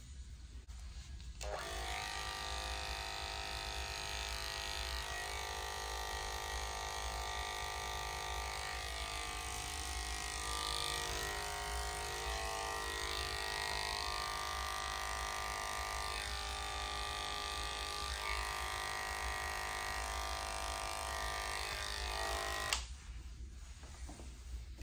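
Electric dog grooming clippers switched on about a second and a half in, running with a steady buzzing whine whose tone shifts a little now and then, then switched off about two seconds before the end.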